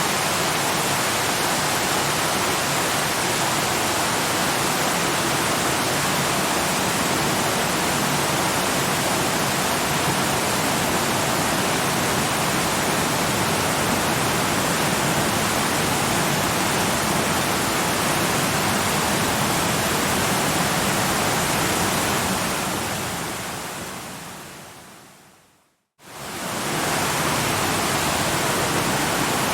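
Waterfall rushing, a steady even roar. Near the end it fades out over a few seconds to a brief silence, then quickly fades back in, like a loop restarting.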